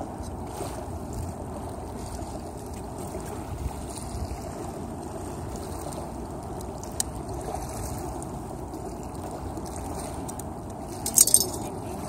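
Steady outdoor background noise with wind rumbling on the microphone, a few faint clicks, and a short burst of sharp rustling about eleven seconds in.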